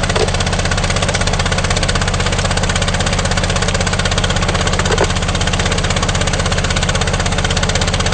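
Small gasoline engine of a 2½-inch suction dredge running steadily, with a fast even pulse, over the hiss of water rushing through the bucket classifier.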